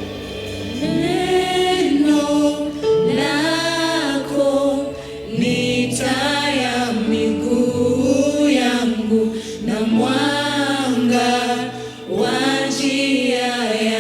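Gospel worship song: voices singing long phrases over steady held instrumental chords.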